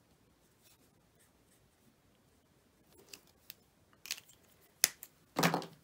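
Alcohol marker tip rubbing faintly on cardstock, then a string of short, sharp plastic clicks and taps as the marker is capped and put down, the loudest click a little under five seconds in.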